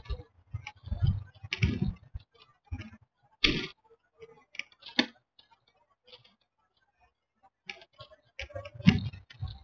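Irregular clicks and short rustles picked up by the camera mounted on a Cody kite as the kite's fabric and frame shift on the grass, with a louder cluster of knocks near the end.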